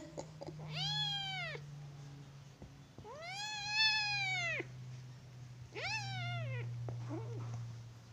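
Kittens fighting, one meowing in protest: three drawn-out meows that rise and then fall in pitch, the middle one longest and loudest, then a short squeak near the end, over a low steady hum.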